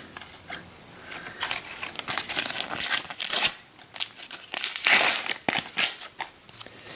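A paper sticker packet being torn open by hand, its wrapper crinkling and crackling irregularly, loudest about three seconds and again about five seconds in.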